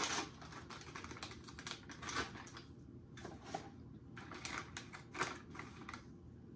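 MRE pouch and the clear plastic bag inside it crinkling as they are torn open and handled by hand: light, irregular crackles.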